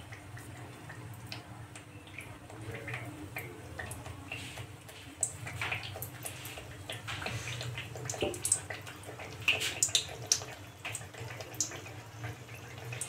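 Mathri dough pieces deep-frying in oil on a low gas flame: a soft sizzle with scattered small crackles and pops that grow busier and louder in the second half.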